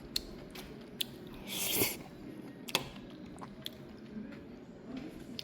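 Sharp, scattered clicks of utensils against dishes, with a brief hiss about one and a half seconds in.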